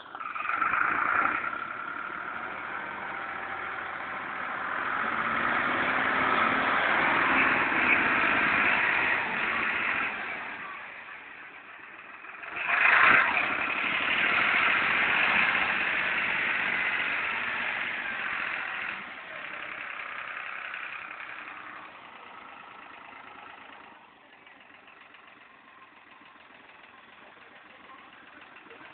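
A New Holland tractor's diesel engine runs as the tractor drives across a muddy field. It is loudest while the tractor works close by in the first two-thirds, with a sharp surge about 13 s in, then settles to a quieter, steady run for the last few seconds.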